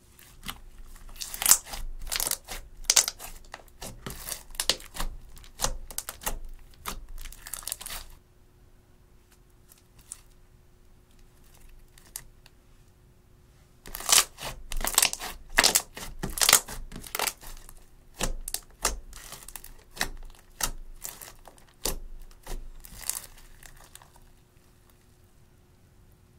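Clear slime mixed with makeup and glitter being stretched, folded and pressed by hand, crackling and popping in quick runs. It goes quiet for several seconds in the middle, then the crackling starts again.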